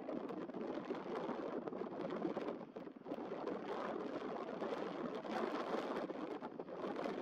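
Steady rushing of wind on the microphone mixed with choppy harbour water, surging and easing in gusts. No distinct engine note from the passing tug stands out.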